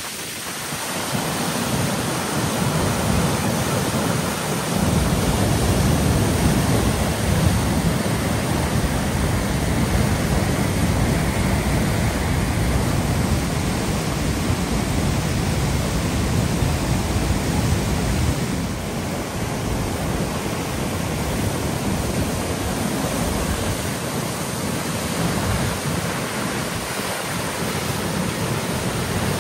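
A river in flood rushing and churning over falls and rapids: a steady, loud roar of water with a deep rumble underneath that eases slightly about two-thirds of the way through.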